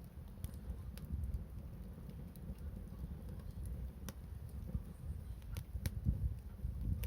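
Wood fire crackling, with sharp single pops every second or so over a steady low rumble.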